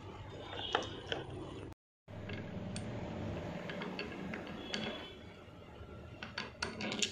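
Scattered small metallic clicks and taps as steel crimping dies are handled and seated in the jaws of a hydraulic crimping tool.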